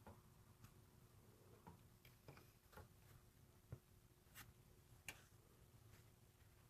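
Near silence: room tone with a faint steady hum and a scattering of faint, irregular clicks.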